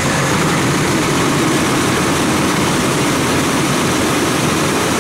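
Engine running steadily at speed to drive the grain auger that unloads soybeans from a bin into a truck: a loud, even mechanical noise.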